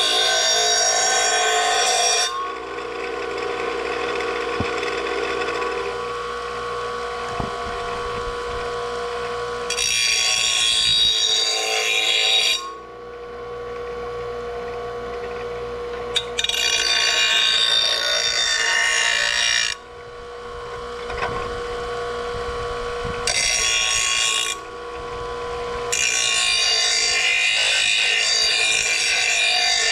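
An electric grinder running steadily, with five loud stretches of grinding as the steel mower blade is pressed against it to take off the rounded edge and burrs.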